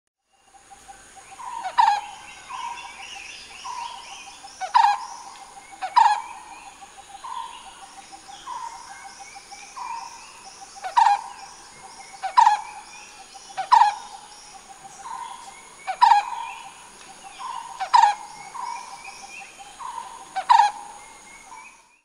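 Brown-headed barbet calling, starting about half a second in: a mellow note repeated about once a second over a low rolling trill, with sharper, louder notes every one to three seconds. A steady high insect drone runs behind.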